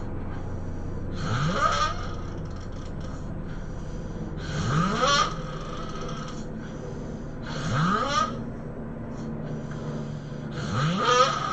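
A person snoring, four snores about three seconds apart, each one rising quickly in pitch.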